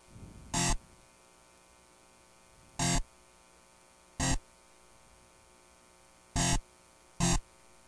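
Five short stabs of a distorted metal guitar from FL Studio's 'DIST Metal' preset, each a single note a quarter second or less, irregularly spaced one to two seconds apart: note previews as each note is clicked into the piano roll. A faint steady hum lies underneath.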